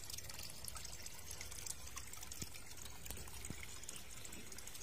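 Water trickling steadily into a garden fish pond, an even splashing hiss with a few faint ticks.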